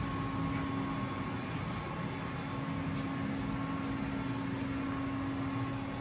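Weiler E110 CNC lathe running under power: a steady machine hum with a constant low tone and a fainter higher whine over a low rumble.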